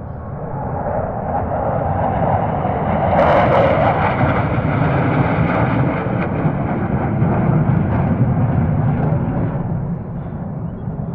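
Military aircraft flying past overhead: engine noise swells to a peak about three to four seconds in, with a pitch that slides downward as it passes, then slowly fades.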